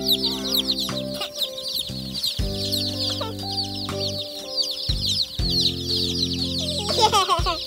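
A brood of day-old chicks peeping constantly, many overlapping high chirps, each falling in pitch. Under it, background music of held chords, struck anew every two or three seconds.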